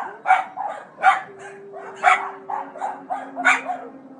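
Dogs barking over and over in quick succession, about two to three barks a second. A faint steady low tone sounds underneath for a couple of seconds in the middle.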